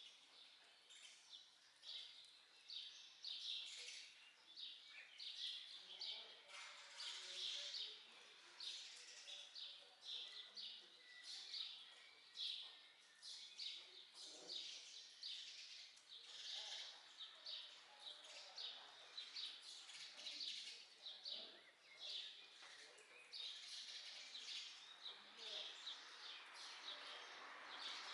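Faint birdsong: small birds chirping over and over in short, high calls.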